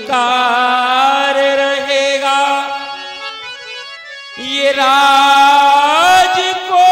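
Devotional stage singing: a man's voice drawing out long held notes over instrumental accompaniment. The music dips about three seconds in and swells back a second later, climbing in pitch near the end.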